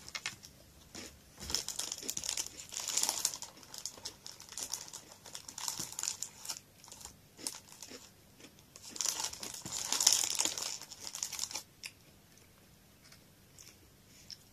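Foil inner bag of a Koala's March biscuit box crinkling as fingers rummage in it. The rustling comes in two main bouts with scattered small clicks between, then stops a couple of seconds before the end.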